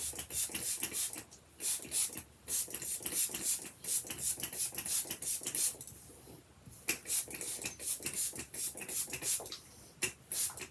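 Curly hair being wet down and worked by hand: a run of short, irregular rustling strokes, with a brief pause a little past halfway.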